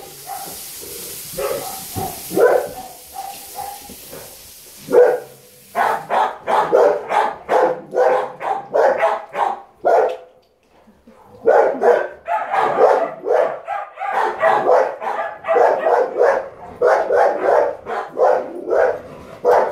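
Dogs barking: a few single barks at first, then a fast run of two to three barks a second with a short break about halfway through.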